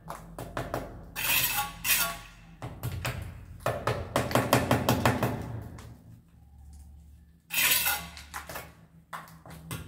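A mason's trowel scraping and clinking against wet mortar and a wall electrical box as the box is bedded and tapped into line: a run of short clicks and knocks with several rough scrapes between them.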